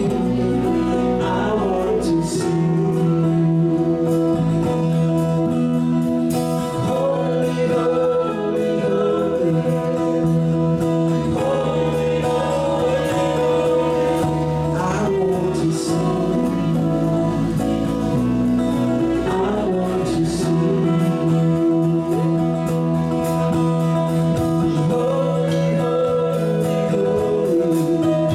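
Small live band playing a song: acoustic and electric guitars, electric bass and drums, with men singing.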